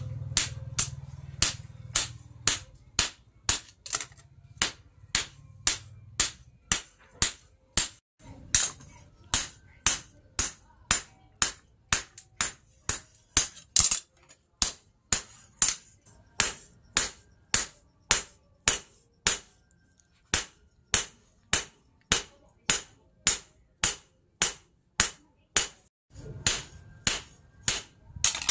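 Hand hammer forging red-hot plough-disc steel on an anvil: sharp metal-on-metal blows in a steady rhythm of about two a second. A low hum sits underneath for the first few seconds and again near the end.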